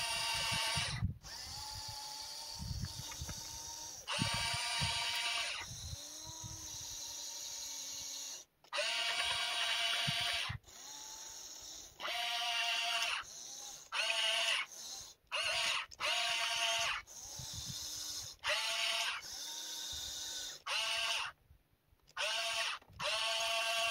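Electric drive motors of an RC tracked excavator whining as it pushes dirt with its blade, starting and stopping about a dozen times in short runs of one to two seconds as the controls are worked.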